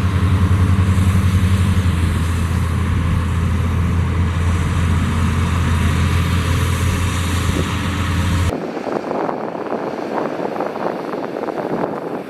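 Heavy diesel engine of construction machinery running steadily at a constant speed, cutting off abruptly about eight and a half seconds in. After that comes a lighter, rougher rumble with scattered crackle.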